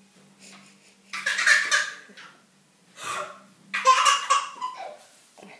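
Toddler laughing out loud in a few bursts, the loudest about a second in and another near four seconds in.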